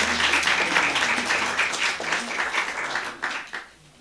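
Audience applauding, dense clapping that thins out and stops about three and a half seconds in.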